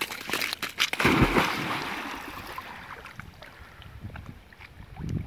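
Golden retriever leaping off the shore into a lake: a loud splash about a second in, then water washing and fading as it swims off.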